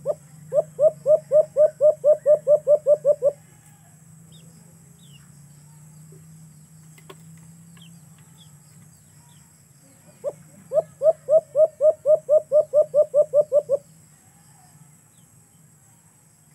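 Caged dove cooing: an opening note, then a quick run of about thirteen coos at roughly four a second. The run comes twice, about ten seconds apart.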